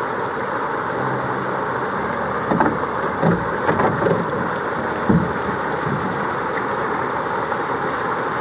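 Water pouring steadily over a beaver dam in a continuous rush. A few short knocks come about two to five seconds in.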